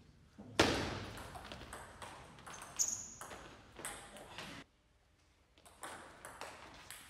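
Table tennis rally: the ball clicking sharply off the rackets and the table in quick succession, the hardest hit about half a second in. After a quiet gap of about a second past the middle, the clicks start again.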